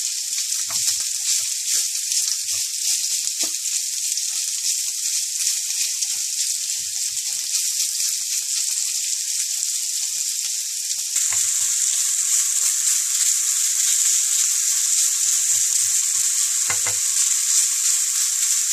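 Minced beef and pork sizzling as it browns in hot oil in a nonstick frying pan, with a wooden spatula scraping and stirring it now and then. The sizzle gets louder about eleven seconds in.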